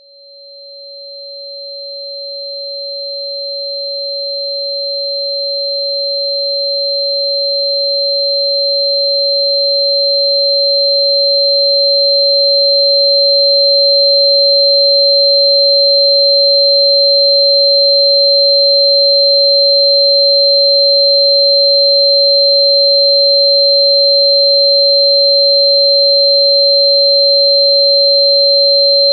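Electronically generated steady sine tone at about 559 Hz, the frequency listed for Chuan Bei Mu (Sichuan fritillary bulb), with a fainter high tone near 4 kHz. It fades in slowly over roughly the first dozen seconds, then holds steady.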